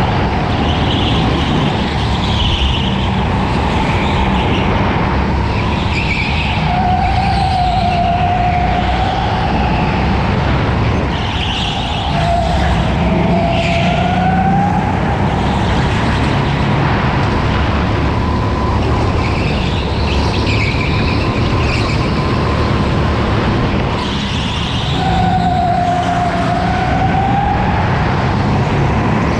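Onboard sound of a racing go-kart lapping an indoor track: a steady low rumble under a whine that rises and falls with speed. Short tyre squeals come repeatedly through the corners.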